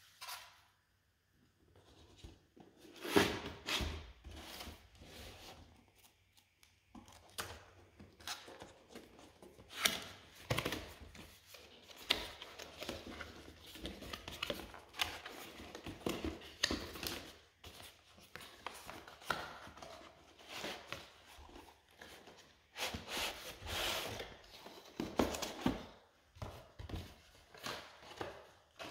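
Product packaging being opened and handled by hand: irregular rustling, tearing and scraping, with scattered knocks and clicks.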